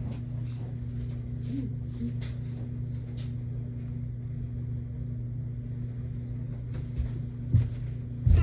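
A steady low hum, with faint scattered clicks, then a few heavy thumps near the end.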